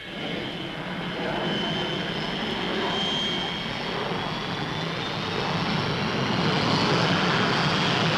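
Fairey Delta 2 research jet flying past, its Rolls-Royce Avon turbojet making a steady rushing jet noise with a thin high whine, growing gradually louder toward the end.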